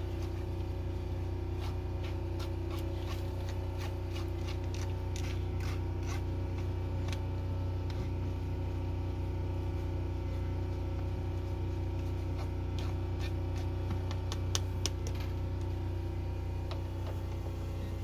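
Light scraping and clicking as a small pusher works wet coffee grounds inside a stainless mesh pour-over filter, over a steady low hum.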